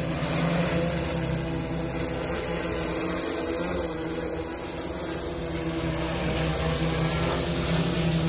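Six-rotor agricultural spraying drone flying low while spraying, its propellers giving a steady hum that grows a little louder near the end as it comes closer.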